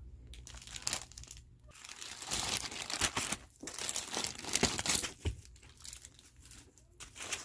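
Clear plastic packaging bag crinkling and rustling as it is handled and opened, loudest in the middle and lighter toward the end.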